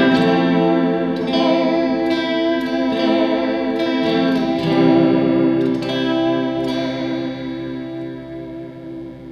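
Guitar chords played through a Chase Bliss Tonal Recall bucket-brigade analog delay pedal set for a Leslie-style chorus simulation: the sustained strums carry a fast, slightly tapey rotary-speaker wobble rather than audible repeats. The chord changes about four and a half seconds in, and the sound fades away near the end.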